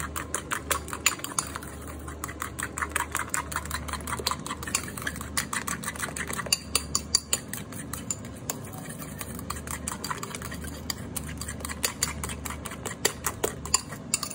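A metal fork beating eggs and grated parmesan in a ceramic bowl, a fast, steady run of light clicks as the fork strikes the bowl, mixing a carbonara sauce.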